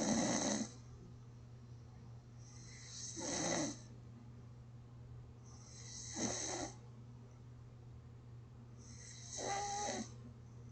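A person snoring in slow, even breaths, about one snore every three seconds, each a rasping breath lasting about a second. The last snore near the end carries a whistling tone.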